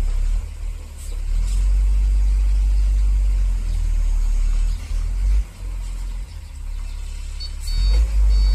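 FAW J6P-350 dump truck's diesel engine running under load as the truck reverses over soft ground; the engine eases off a little after halfway and picks up again near the end. Reversing beeps start near the end.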